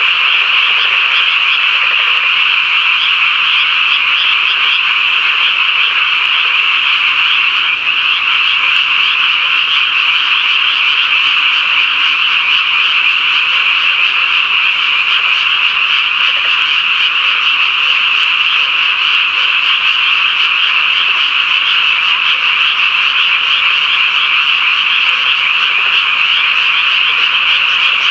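Dense frog chorus: many frogs calling at once in a steady, unbroken wall of high-pitched calls.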